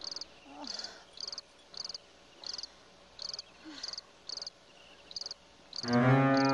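Crickets chirping, short pulsed chirps about one or two a second. Near the end, loud music with long held notes comes in over them.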